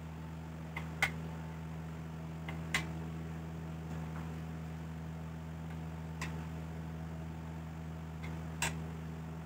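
Steel ruler and combination square knocking against the aluminium sole and blade area of an electric hand planer: four sharp metallic clicks spread out over several seconds. A steady low hum runs underneath.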